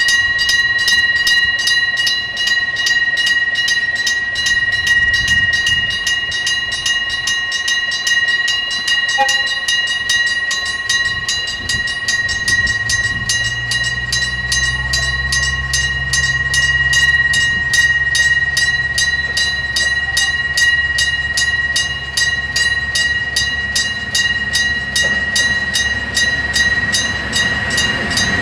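Electric striker bell of a Japanese level-crossing signal ringing continuously with rapid, even strokes, several a second, each leaving a steady metallic ring. About twelve seconds in a low rumble builds under it and fades again about ten seconds later: a Tsugaru Railway diesel railcar passing over the crossing.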